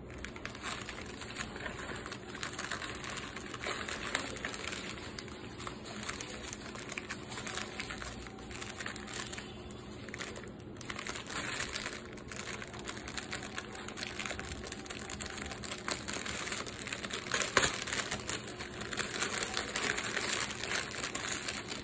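Thin plastic packaging crinkling continuously as hands open a courier mailer and turn over a clear poly bag of disposable face masks, with one louder crackle a little past the middle.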